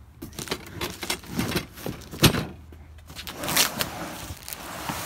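A large cardboard shipping box being handled in a pickup's truck bed and opened: a string of knocks and scrapes, one loud thump about two seconds in, then rustling cardboard as the flaps are pulled open.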